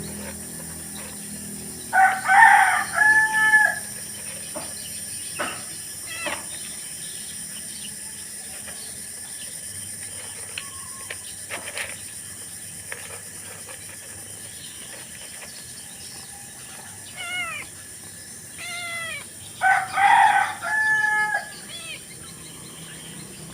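A rooster crowing twice, about eighteen seconds apart. Each crow is a run of short notes ending in a held one.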